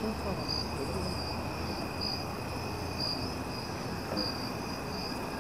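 Dense chorus of night-singing insects: a steady high trill with a louder, higher chirp pulsing in roughly once a second.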